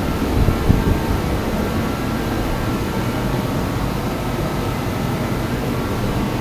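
DeWalt forced-air torpedo heater running steadily, a constant rush of fan and burner with a low rumble. It is firing properly now that its fuel pressure has been turned up a little.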